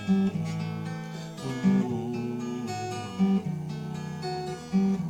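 Instrumental music led by acoustic guitar, with chords strummed in a steady rhythm and a strong accent about every second and a half.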